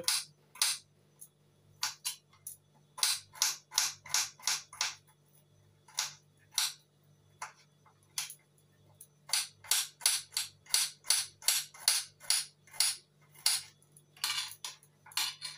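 Cooking oil heating in a non-stick wok, crackling and spitting in irregular sharp pops, sparse for a few seconds in the middle and then coming several a second. A faint steady low hum runs underneath.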